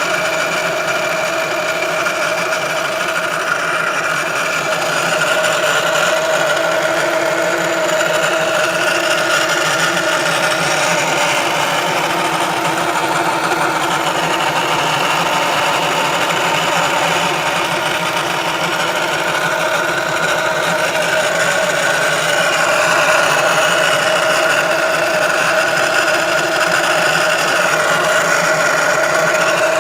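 Ford Focus running with a steady whining noise of several held tones over a mechanical running sound: the abnormal noise that the owner puts down to the transmission control module (TCM).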